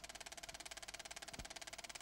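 Faint steady buzz and hiss with a fast, even pulse and one soft low thump about halfway through.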